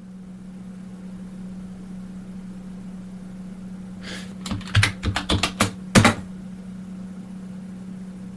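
Computer keyboard keys clicking in a quick run of about eight keystrokes around the middle, entering a short word and Return at a login prompt, over a steady low hum.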